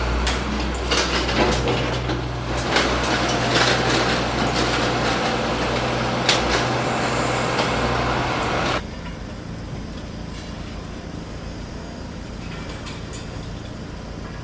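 A heavy engine running with a steady low hum, with knocks and clatter over it; it cuts off suddenly about nine seconds in, leaving a quieter steady noise.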